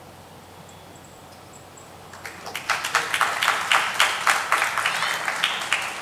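Audience applauding in a hall, starting about two seconds in after a short quiet stretch, swelling quickly and tapering off near the end.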